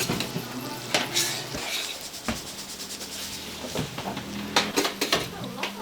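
Food sizzling on a hot cooking surface while metal utensils clink, knock and scrape against it and the dishes, in a string of sharp clicks.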